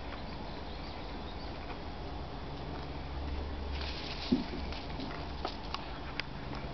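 Cats chewing and pulling at wheat grass: soft scattered crunching and rustling ticks, with one brief louder sound about four seconds in, over a steady low hum.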